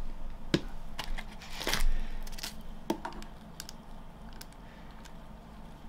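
Light clicks and knocks with a short rustle, bunched in the first three seconds, then only faint ticks: hand-handling noise as a small centipede is caught into a pot.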